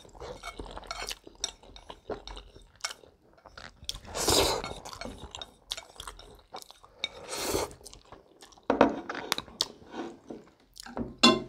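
Close-miked eating of spicy instant noodles: wet chewing with longer slurping swells about four seconds in and again a few seconds later, among sharp clicks and a couple of clinks of chopsticks against the plate.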